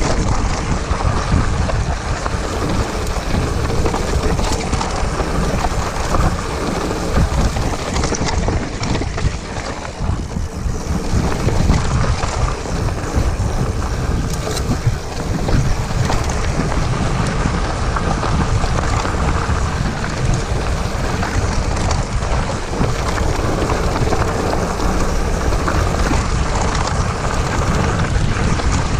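Hardtail mountain bike riding fast down a rocky dirt trail: wind buffets the microphone throughout, over the crunch of tyres on gravel and the rattle of the bike over bumps.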